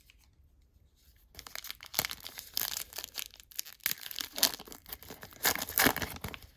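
A trading card pack wrapper being torn open and crinkled by hand, with a rustling, crackling tear starting about a second and a half in.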